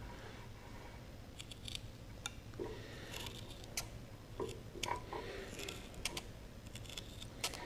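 Tin snips cutting through a thick rubber strip: a run of irregularly spaced snips and sharp clicks as the blades close and work through the rubber, starting about a second and a half in.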